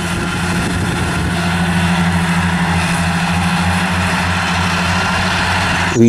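Farm tractor's diesel engine running steadily under load, driving front and rear disc mowers through grass: a constant deep hum over an even mechanical noise.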